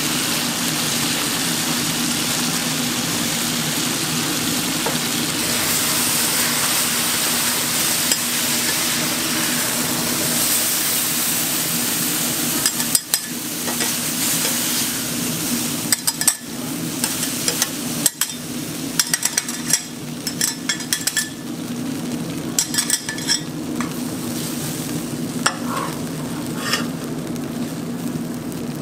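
Beaten egg sizzling on a hot flat-top griddle, a steady hiss for the first half. From about halfway, metal spatulas scrape and clack against the griddle in many quick, irregular strikes over the continuing sizzle, with a steady low hum underneath.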